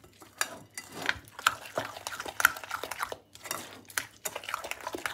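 Wet minced meat with yogurt and ground spices being mixed by hand in a ceramic bowl: irregular sticky squishes and small clicks of fingers against the bowl.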